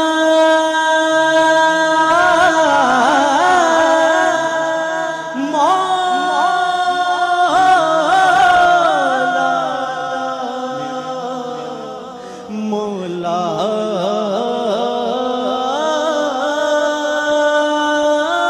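A young man singing a devotional Urdu supplication (naat) without words at this point. He holds long notes, broken by quick wavering runs of ornament.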